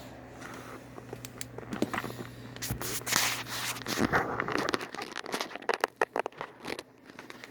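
Handling noises from working inside an open desktop PC tower: rustling and scraping with many irregular sharp clicks, over a low steady hum that drops away about halfway through.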